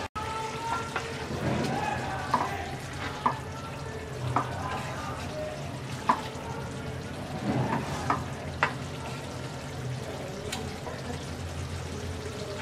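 Wooden spatula stirring cabbage and eggs in a nonstick kadai, with several sharp taps of the spatula against the pan, over a steady simmering sizzle as the last of the water cooks off.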